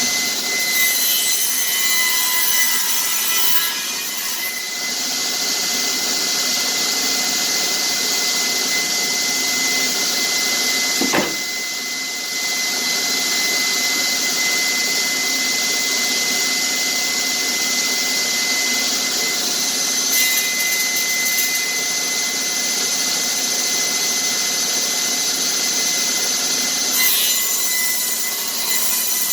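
Table saw running with a steady high whine, its blade cutting through a glued-up wooden board to trim the edge from about five seconds in until near the end.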